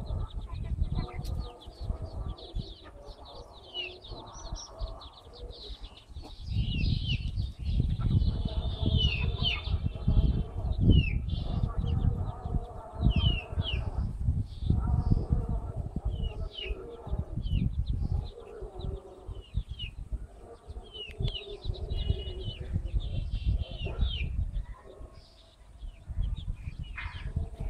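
Chicks peeping with many short, high, downward-sliding peeps while the mother hen clucks softly, over a low rumbling noise on the microphone.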